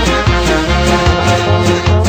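Upbeat background music with brass instruments and a steady beat.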